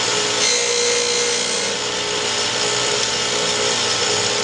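Camshaft grinder running, its grinding wheel grinding a miniature 4130 steel camshaft: a steady grinding noise with a constant whine over it.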